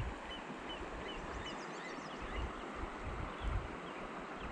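Steady rush of a small creek's flowing water, with a small bird chirping repeatedly, two or three short high chirps a second, and a few quick falling chirps about a second in.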